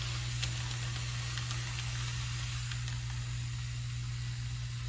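Steady low hum under an even hiss, with a few faint ticks.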